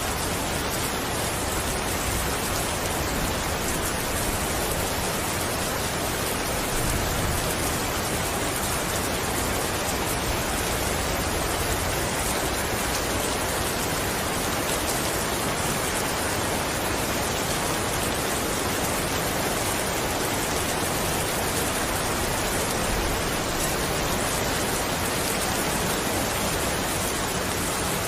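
Steady heavy rain falling, an even hiss with no distinct drops or pauses.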